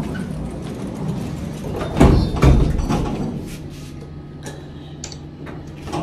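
Elevator doors sliding, with two heavy thuds about half a second apart about two seconds in, then a steady low hum.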